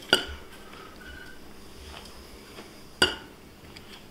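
Two sharp clinks of a metal spoon against kitchenware, one at the start and one about three seconds later, as peanut butter is scooped from the jar to be measured.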